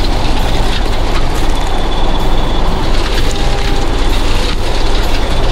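John Deere tractor engine running under load while its arm-mounted hedge-cutter head spins and chews through brush and branches: a steady low drone under loud, dense cutting noise, with a few faint cracks.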